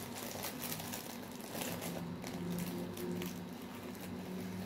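Rustling and crinkling of packaging handled by hand while searching through a kit's contents, in short irregular strokes over a steady low hum.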